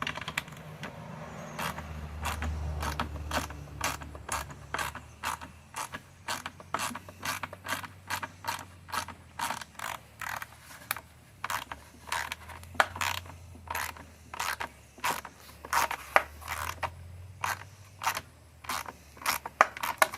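Socket ratchet wrench with a 10 mm socket clicking in a steady rhythm, about two to three clicks a second, as the handle is swung back and forth to turn a bolt on the lawn mower's starter housing.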